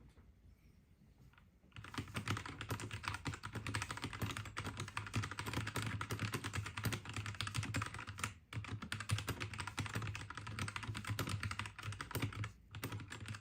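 Fast typing on a mechanical keyboard: a dense, continuous stream of keystrokes starting about two seconds in, with brief pauses near the middle and near the end.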